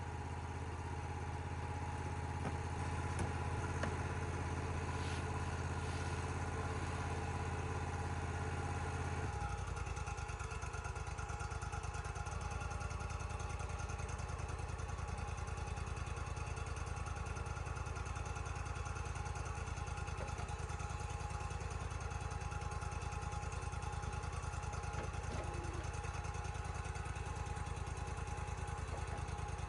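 Wood-Mizer portable sawmill's engine running steadily, its low note changing about nine seconds in and then holding even.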